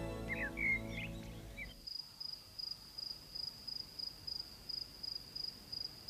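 Soundtrack music fading out in the first two seconds, with a few short chirps, then a cricket chirping steadily, about three high-pitched chirps a second.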